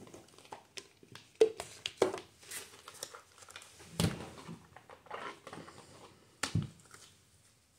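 A deck of oracle cards being shuffled and handled by hand: irregular papery rustles and sharp card taps, a few of them louder, dying away near the end.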